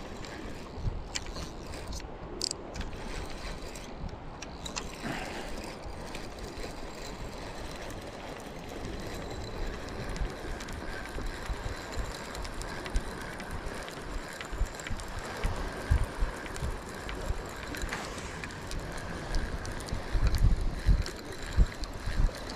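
Spinning fishing reel being wound by its handle, the gears running with a steady whir as line is retrieved. A few louder low thuds come near the end.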